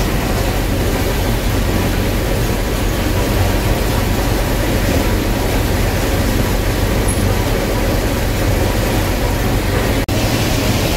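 Gleaner combine running steadily under load while harvesting corn, heard from inside the cab: a constant low engine and machinery hum. There is a brief break about ten seconds in.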